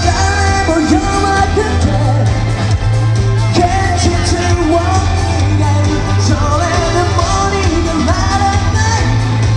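Live rock band playing loudly with a singer, heavy bass and drums, in a large hall.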